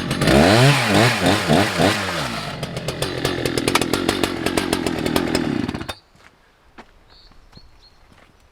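Husqvarna 181 SE two-stroke chainsaw cutting through a large beech log, its engine speed swinging up and down at first, then running steadily under load until it cuts off about six seconds in. The owner feels the saw is bogging down in the cut and its carburettor needs adjusting. Faint bird chirps follow.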